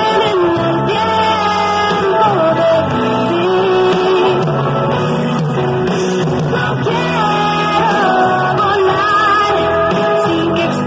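A song with a lead vocal over instrumental accompaniment, playing loud and without a break.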